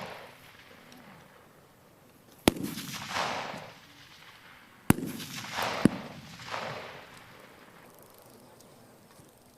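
Three single 5.56 mm rifle shots, each with a rolling echo trailing off over about a second. The first comes about two and a half seconds in; the other two come close together, about a second apart, near the middle.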